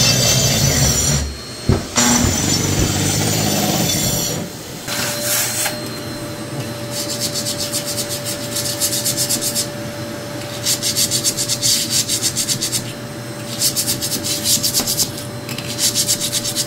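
A shrouded grinder grinds mould off the bare subfloor for about four seconds, then stops. After that a vacuum runs with a steady whine while a hand scraper rasps across the floor in repeated strokes of one to two seconds.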